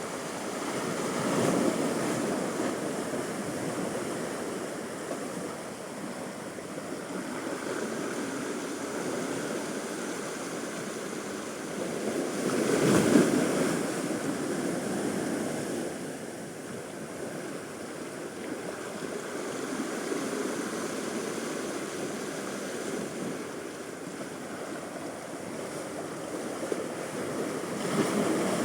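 Sea waves at high tide washing onto a beach: a continuous surf wash that swells as waves break, loudest about halfway through, with smaller surges near the start and the end.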